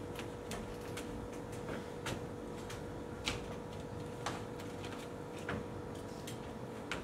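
Scattered light knocks, taps and clicks of stage props being handled and shifted, with a steady faint hum underneath.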